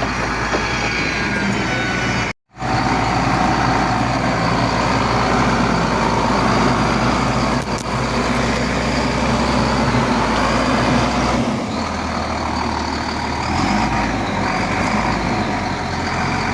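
Heavy diesel engine of an XCMG motor grader running steadily at work. The sound breaks off for a moment about two seconds in, and the engine note shifts near the end.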